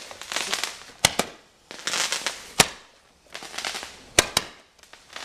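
Hand-held firework tubes spraying sparks with a hiss, broken by sharp pops as they fire: a close pair about a second in, one more midway, and another pair near the end.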